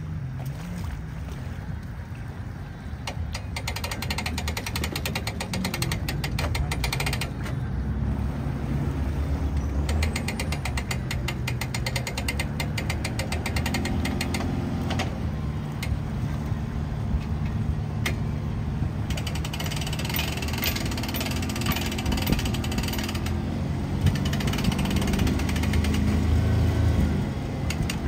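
Boat trailer's hand winch being cranked, its ratchet pawl clicking rapidly in three spells of several seconds each, with the boat's outboard motor running underneath.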